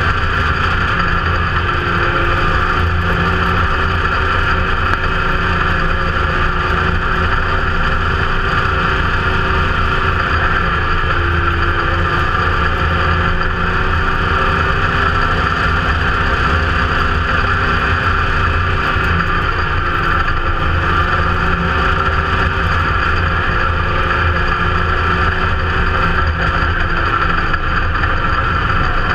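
IMCA Modified dirt-track race car's V8 engine, heard from inside the cockpit, running at fairly steady low revs with small rises and falls in pitch.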